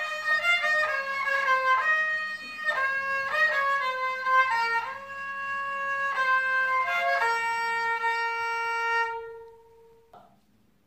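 Kamancha, the Azerbaijani bowed spike fiddle, playing an Azerbaijani song melody solo. It ends on a long held low note that fades out about nine seconds in, followed by a few faint short noises.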